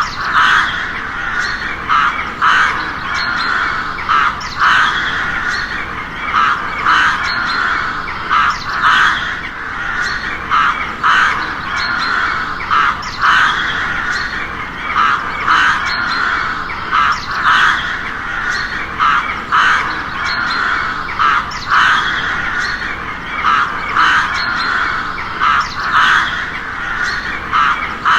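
Crows cawing, one harsh caw after another about once a second, with no break.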